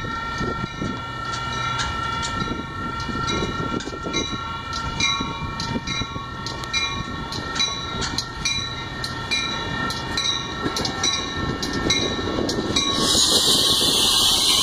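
Railroad grade-crossing bell dinging steadily while a Metra commuter train pulls out and approaches. Near the end the stainless-steel bilevel coaches roll close past, with a loud rising rush of wheel and car noise.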